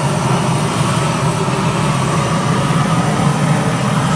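GrillGun propane torch burning with a steady, unbroken flame, blowing into a bed of lit charcoal in a grill.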